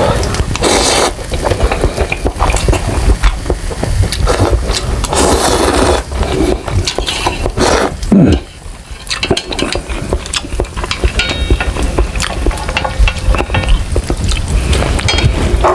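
Close-miked eating of instant noodles: long wet slurps as noodles are drawn in, then chewing with many small wet mouth clicks.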